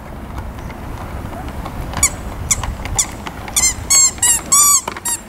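Squeeze-horn squeaker in the Hello Kitty figure on a child's tricycle handlebar squeezed again and again: short squeaks, each rising then falling in pitch. They start about two seconds in and come quicker toward the end, over a steady low rumble.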